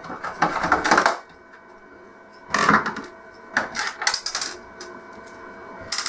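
Clicking and rattling from a screwdriver and loose screws being handled on the plastic back panel of an LCD TV as its four screws are taken out, in three short bursts with quieter gaps between.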